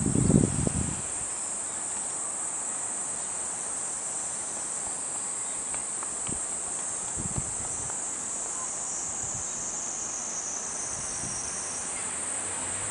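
Insects chirring in a steady, high-pitched drone without pause. Low rustling handling noise is loud in the first second, with a few faint knocks later.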